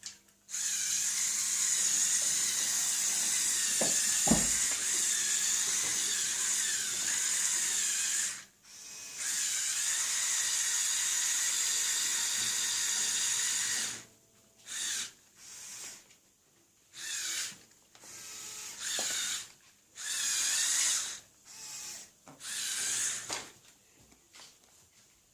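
Small electric motors of the Lego Technic 42009 Mobile Crane Mk II whine as they drive the model's plastic gears. A long run lasts about eight seconds, with a knock about four seconds in, then after a short break another run of about five seconds. After that come a series of short bursts of a second or two each, starting and stopping.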